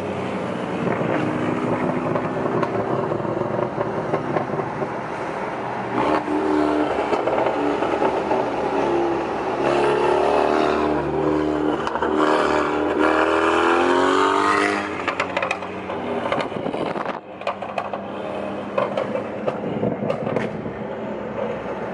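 Tuned Alfa Romeo Giulia's engine and exhaust pulling alongside: a steady drone, then about ten seconds in the revs climb hard for several seconds and cut off. A run of sharp exhaust pops and crackles follows on the lift-off.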